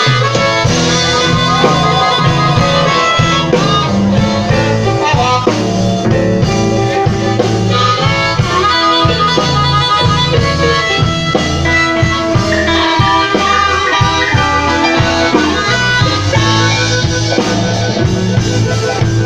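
Live blues band playing: amplified blues harmonica leading over electric guitar, bass and a drum kit.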